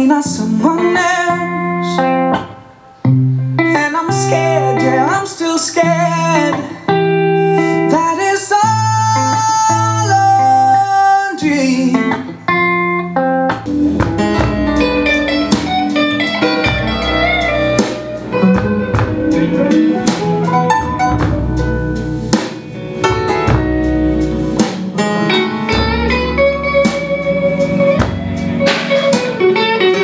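Song with guitar and singing played back through a pair of two-way bookshelf speakers driven by a TDA7498 class D amplifier. A deep bass line comes in about 14 seconds in.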